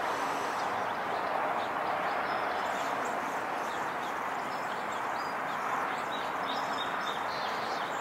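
Small birds chirping again and again in short high notes over a steady outdoor background noise.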